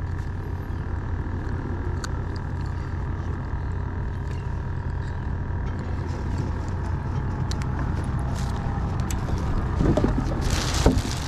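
A steady low rumble with a constant hum. Near the end a plastic bag crinkles and rustles.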